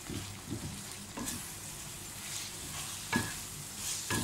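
Sliced onions sizzling in a tomato-masala gravy in a metal kadhai while a wooden spatula stirs and scrapes through them, with a few sharp knocks of the spatula against the pan.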